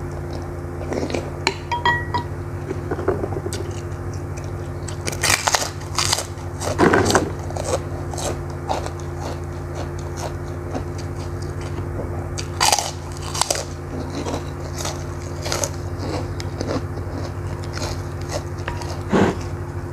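Close-miked eating: crisp crunching bites into a prawn cracker (krupuk) and chewing, in three loud clusters, about five seconds in, around the middle and near the end, over a steady low hum.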